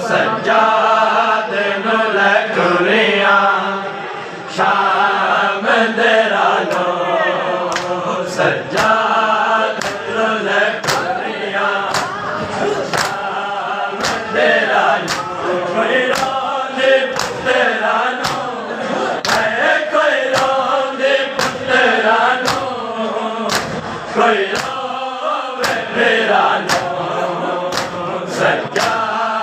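A crowd of men chanting a noha mourning lament together, with loud rhythmic chest-beating (matam) slaps about once a second.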